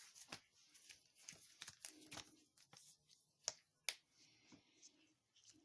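Faint handling noises as a TARDIS display figure is turned over in the hands: scattered light clicks and taps, with two sharper clicks about three and a half and four seconds in.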